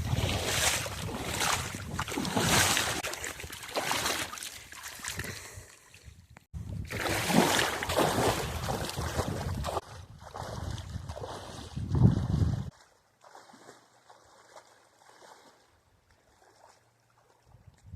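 Water splashing in a regular rhythm, with wind rumbling on the microphone. It breaks off suddenly about twelve seconds in, leaving only faint noise.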